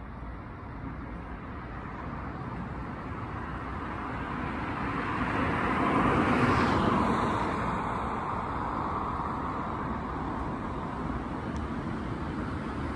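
A car passing by on the road, its tyre and engine noise swelling to a peak about halfway through and then fading away.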